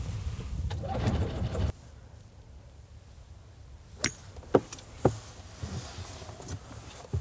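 Wind buffeting the microphone as a low rumble, which cuts off abruptly under two seconds in. Then, over a quieter background, three sharp clicks about half a second apart, and one more click near the end.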